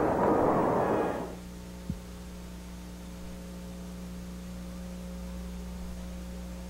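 Brass-band broadcast music cuts off about a second in, leaving a steady electrical mains hum on the tape recording, with a single click shortly after the cut.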